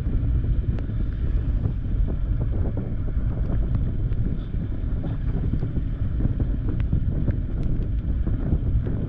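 Wind buffeting the microphone of a moving motorcycle, over the low rumble of a Bajaj Dominar 400's single-cylinder engine cruising steadily in a high gear at low revs on a wet road.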